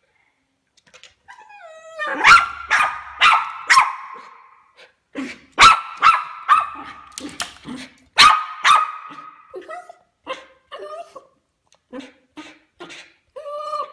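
West Highland White Terrier whining with a falling pitch, then barking in rapid clusters of loud barks, tailing off into shorter, quieter barks and whines near the end. An excited terrier worked up by a cat on the other side of the glass.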